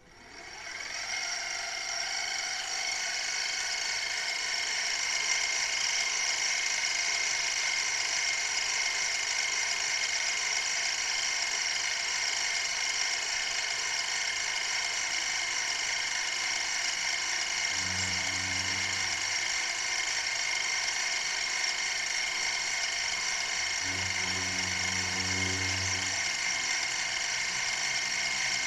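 SM-10X2 mini milling machine's 350 W spindle spinning up over the first couple of seconds, then running steadily with a high-pitched whine while its cutter mills into the front face of a stepper motor. Twice, about two thirds of the way through and again near the end, a low hum joins in for a second or two.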